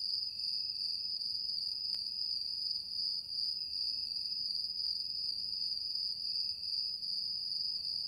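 Crickets chirping in a continuous, steady high trill.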